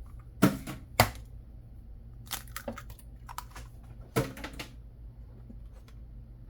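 Sharp knocks and clicks of kitchen preparation at a bowl, five or six in all: two loud ones about half a second apart near the start, a cluster after about two seconds, and another loud one past four seconds, over a low steady hum.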